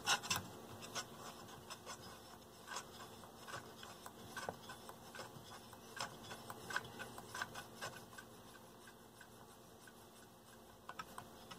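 Potentiometers on a Velodyne F-1200-b subwoofer amplifier board being turned back and forth by hand to work in freshly sprayed DeoxIT contact cleaner: faint clicks and rubbing, a few quick strokes at the start, then sparse light ticks.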